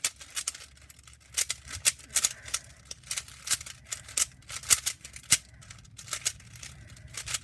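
Plastic Rubik's Cube being twisted quickly to scramble it: a run of sharp, irregular clicks and clacks as the layers turn.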